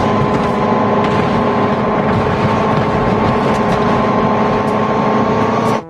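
Loud, steady engine-like drone with a few held tones, cutting off suddenly near the end.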